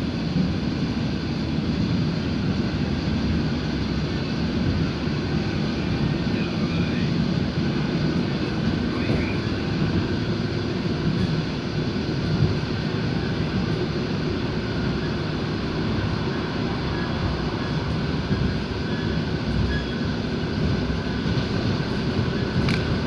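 Train in motion: a steady rumble of wheels running on the rails.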